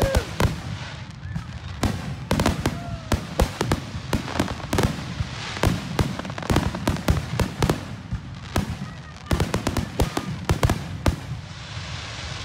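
Aerial firework shells bursting in rapid volleys of sharp bangs and crackles, with short lulls between clusters, thinning out near the end.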